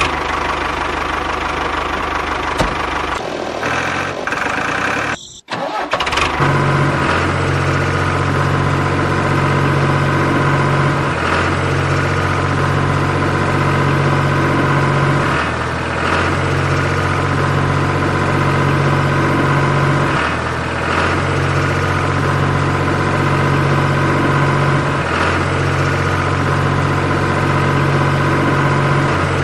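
A steady low engine hum, like a tractor running at idle, dropping back briefly about every four to five seconds. It breaks off for a moment about five seconds in and then carries on.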